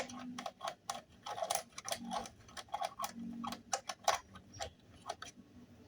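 Irregular light metallic clicks and taps, several a second, from parts and tools being handled on a four-stroke grass cutter's engine.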